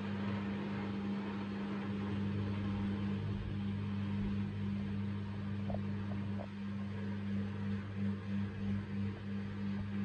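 Miele W3371 washing machine spinning with an unbalanced load: a steady hum. Late on it begins to pulse, swelling and fading about two to three times a second.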